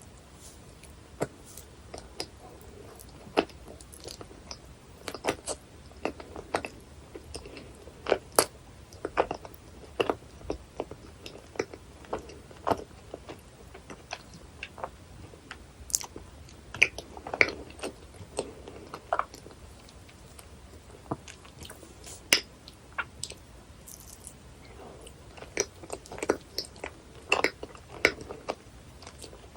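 Close-miked chewing of dense, fudgy cheesecake: soft, sticky mouth sounds with frequent sharp, irregular clicks, thickest in the middle and near the end.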